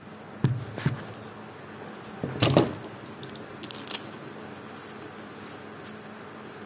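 Handling knocks and bumps as a phone camera is moved and set down on the shooting bench: two knocks in the first second, a louder cluster around two and a half seconds, then a few light clicks. After that only a steady hiss.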